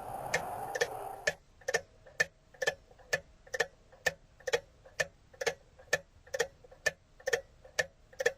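Steady, even ticking, about two ticks a second, like a clock or metronome. A fuller background noise under the ticks cuts out just over a second in, leaving the ticks alone.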